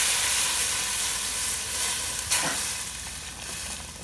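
Hot water poured in a stream into a steel pot of catfish and herbs fried in oil, splashing and sizzling; the hiss fades as the pour tapers off. A light knock about halfway through.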